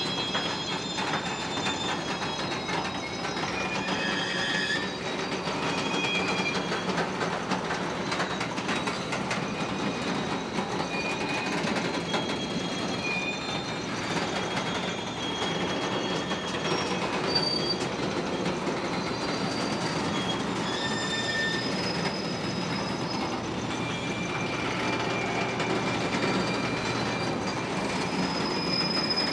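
A long train rolling past on the rails, with a steady rumble of wheels on track and many brief high-pitched wheel squeals coming and going.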